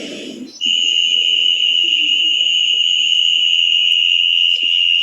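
Cricket chirping as a loud, unbroken high-pitched shrill that starts abruptly about half a second in and holds one steady pitch until it cuts off at the end.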